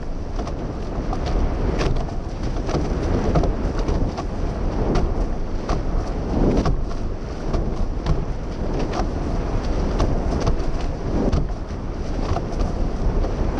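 Wind buffeting the camera's microphone as a sailing catamaran races along, with the rush of water and spray off the hulls and frequent irregular slaps of waves and spray.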